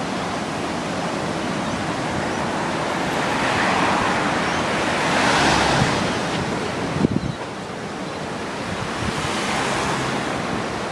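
Steady rushing of floodwater, which swells twice, with wind on the microphone and a few short knocks about seven seconds in.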